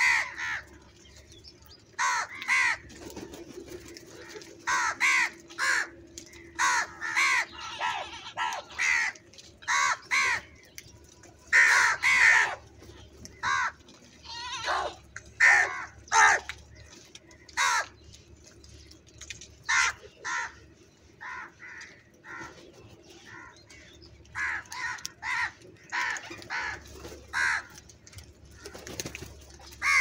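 A flock of house crows cawing: many short calls, singly and in quick runs of two or three, at irregular intervals.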